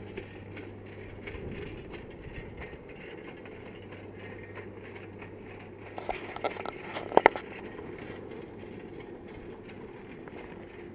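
Bicycle rolling on a rough asphalt road: steady tyre and road noise, with a low steady hum over the first few seconds and a few sharp rattling clicks about six to seven seconds in.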